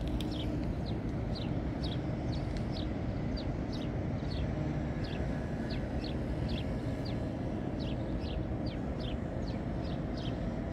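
A small bird calling over and over with short descending chirps, about two a second and often in pairs, over a steady low rumble.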